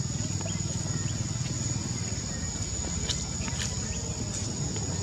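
Steady high-pitched insect drone over a low rumble, with a few short faint chirps.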